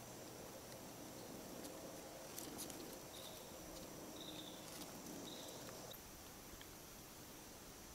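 Faint woodland ambience: a steady high insect drone with three short high chirps in the middle, and a few soft clicks and rustles of leaves being handled.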